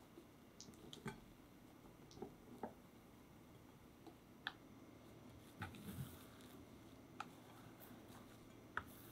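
Wire whisk clicking lightly against a glass mixing bowl as it stirs a thick chocolate ice cream mixture: about ten faint, irregular clicks over a quiet background.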